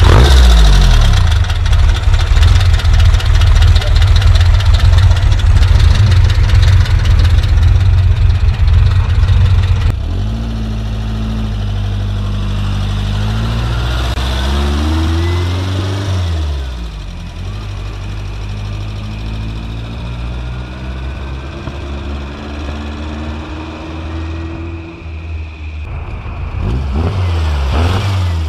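Meyers Manx dune buggy's 1935 cc air-cooled Volkswagen flat-four running under way. It is loud and steady for the first ten seconds. After that it revs up and eases off through the gears, then swells as the buggy comes close near the end.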